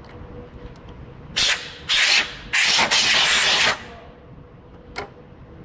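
Three loud bursts of hiss, the first short and the last about a second long and tailing off, followed by a single sharp click about five seconds in, over a steady faint hum.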